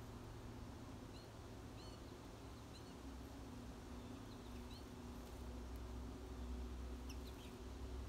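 Faint short chirps of small songbirds, coming singly and in little clusters every second or so, over a low steady hum.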